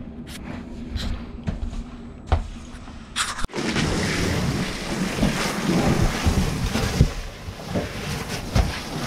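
Wind on the microphone with scattered light knocks, then, after a sudden cut about three and a half seconds in, a garden-hose nozzle spraying water into a metal roof gutter: a steady, loud hiss with spatter.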